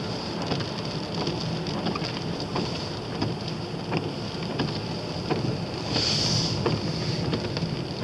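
Car interior noise while driving on a wet road: a steady low engine and tyre hum with a hiss of wet tyres and wind. Scattered ticks of rain hit the windscreen, and the hiss swells briefly about six seconds in.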